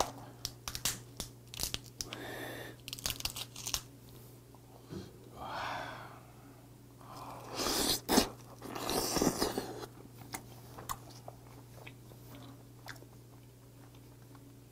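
Steamed red snow crab body being broken and picked apart: a run of sharp clicks and cracks of shell early on, then several noisy sucking and slurping swells as the meat is pulled from the shell by mouth, with chewing.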